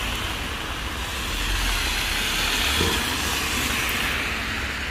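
Heavy rain and water running on a flooded street: a steady hiss with a low rumble underneath.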